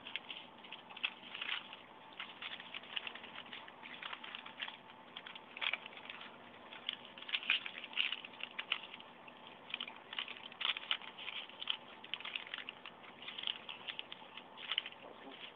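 Newspaper being folded and creased by hand on a table: irregular crackles, rustles and soft taps as the folds are pressed flat, over a faint steady hum.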